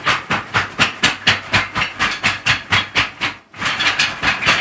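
A deck of tarot cards being shuffled by hand: an even run of papery swishing strokes, about four a second, with a brief pause about three and a half seconds in before the shuffling resumes.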